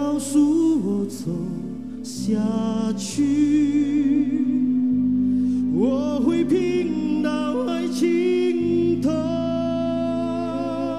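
Male vocalist singing a Mandarin song into a microphone over a backing of bass chords, with a live violin, its long notes held with vibrato.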